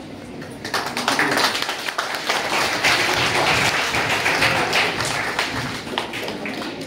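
A small group clapping their hands, starting about a second in and easing off near the end, as a ceremonial brass oil lamp is lit.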